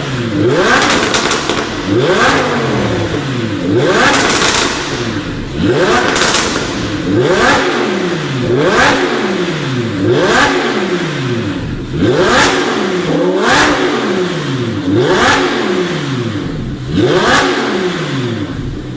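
Lamborghini Huracan LP580-2's naturally aspirated V10 through a Fi Exhaust valvetronic muffler, revved in repeated quick blips about every second and a half, each climbing sharply in pitch and then falling back.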